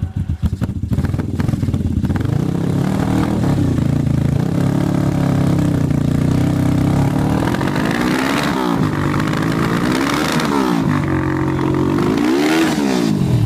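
1981 Suzuki GS450S parallel-twin engine running through reverse-cone mufflers. It fires unevenly for about a second, then settles into a steady idle, and is blipped up and back down three times in the last five seconds.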